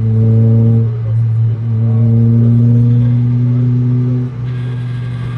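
Toyota Paseo race car's four-cylinder engine heard from inside the cabin, held at a steady pitch with short dips about every second. A little after four seconds the engine note drops and a wider hiss joins it.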